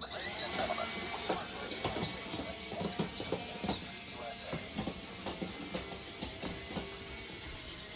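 Small motorized toy ride models running: a steady whirring hiss with irregular clicking and ratcheting of plastic gears.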